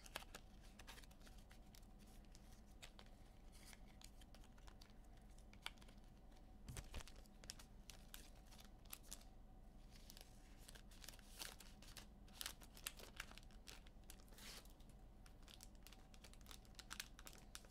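Near silence, with faint scattered clicks and crinkling of trading cards and their packaging being handled.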